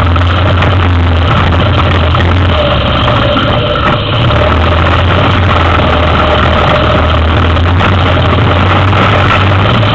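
Yamaha Big Bear 400 ATV's single-cylinder four-stroke engine running steadily at a low, even pitch as the quad is ridden, with no revving.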